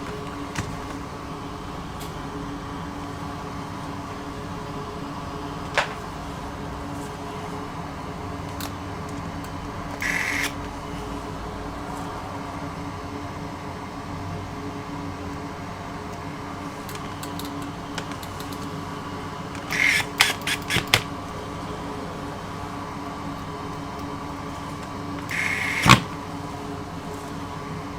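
Handling noises at a repair bench over a steady hum: a few sharp clicks and short scraping rustles, with a cluster of quick rattles about two-thirds of the way through and a loud click near the end.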